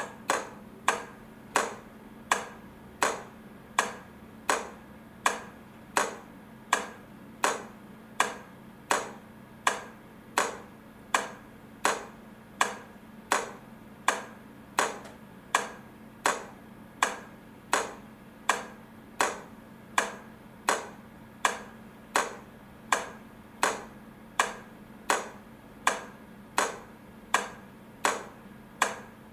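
Railway level crossing warning bell striking steadily, about one and a half strikes a second, each strike ringing briefly, over a low steady hum.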